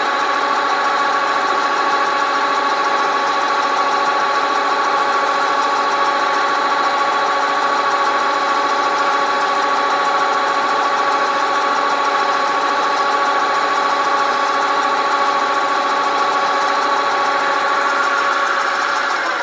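Grizzly G4003G gunsmith's lathe running under power with a steady whine of several pitches, while a hand file is held against the spinning bolt to bevel its end.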